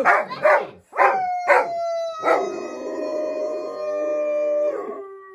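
Golden retriever barking about four times in rough play, then giving one long howl that slowly falls in pitch and drops lower near the end.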